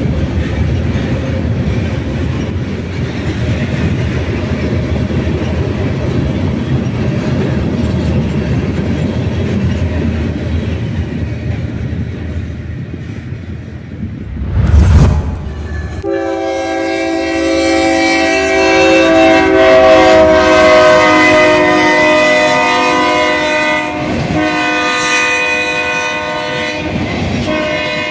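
A freight train rumbling past, then, after a loud low thump about halfway, a diesel locomotive's multi-chime air horn sounds a long chord that slides slightly lower, pauses briefly, and sounds again near the end.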